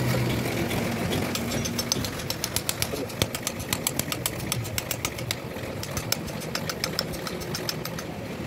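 Steel hammer striking a truck differential's pinion carrier in a long run of quick, sharp metal taps, about five a second, starting about two seconds in and stopping shortly before the end. The blows drive the pinion and its bearing out of the carrier housing.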